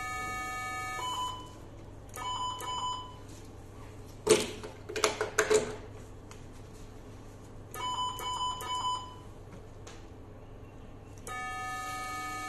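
Vessel-sealing electrosurgical generator sounding its steady multi-pitch activation tone, which stops about a second in and is followed by clusters of short electronic beeps. A burst of sharp clicks and rattles from the forceps and cable being handled is the loudest part; more beeps follow, and the steady activation tone starts again near the end as energy is delivered once more.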